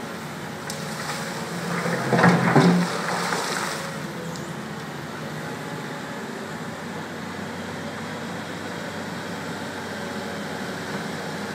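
Tracked excavator's diesel engine running steadily over the rush of floodwater, with a louder stretch about two seconds in as the machine works.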